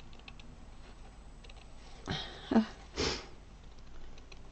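Faint clicks of small embroidery scissors snipping linen, then two short breathy noises from the person about two and three seconds in, the first with a brief low voiced note; these breath sounds are the loudest thing heard.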